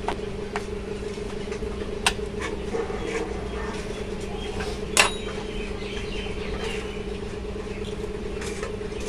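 Steady low hum, with a few sharp clicks and knocks as the electric sewing-machine motor and its belt and pulley are handled; the loudest knock comes about five seconds in.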